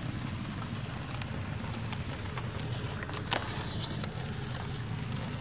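Heavy rain pattering steadily, heard from under a car's open tailgate. A brief rustle and a few clicks of handling come about three seconds in.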